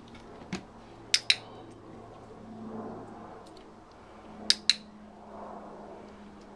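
A dog-training clicker sounding twice, about three seconds apart, each time a sharp two-part click-clack as it is pressed and released: the marker signal of clicker training, given as the border collie works at putting its front paws on a bowl.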